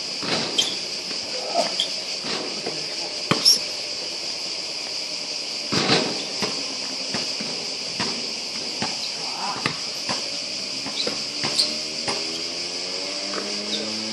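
Insects chirring steadily at a high pitch, with a handful of sharp knocks from a basketball bouncing on the court. Near the end a low hum begins that rises slowly in pitch.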